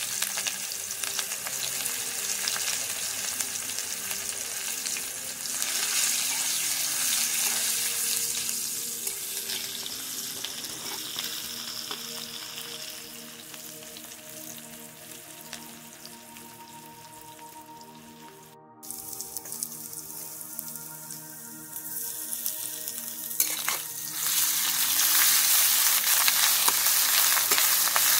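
Sliced onions sizzling in hot oil in a steel wok, loud at first and dying down through the middle. After a sudden break the sizzling picks up strongly again near the end as a metal spatula stirs the onions in the wok. Faint background music underneath.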